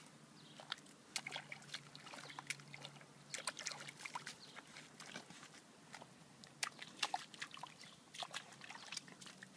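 A dog splashing its paws and muzzle in a shallow muddy puddle: irregular small wet splashes and slaps.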